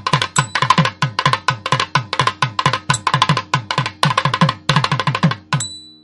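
Background song music: a fast, even hand-drum rhythm, the low strokes each sliding down in pitch, which stops shortly before the end.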